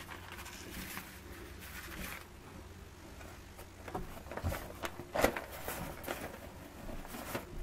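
Old newspaper rustling and crinkling as it is picked up and unfolded by hand, in short scattered rustles that grow louder about halfway through.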